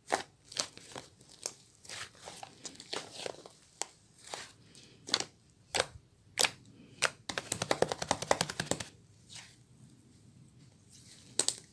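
Crisp crunching and crinkling handling sounds, a series of separate sharp crackles, with a rapid run of about a dozen clicks a second lasting a second and a half partway through.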